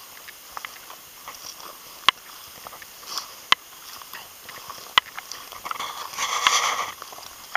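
Footsteps crunching and swishing through dry crop stubble, with three sharp clicks spaced about a second and a half apart and a louder rustle near the end.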